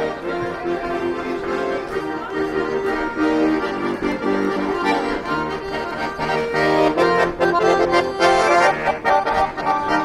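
Instrumental music with held chords under a moving melody, getting louder in the second half.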